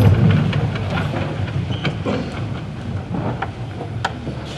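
An audience rising to its feet in an auditorium: a low rumble of shuffling feet and seats, with scattered clicks and knocks, dying away over a few seconds.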